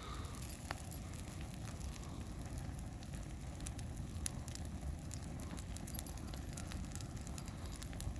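Small fire burning down the last of a plush stuffed animal, crackling with scattered sharp pops over a low steady rumble.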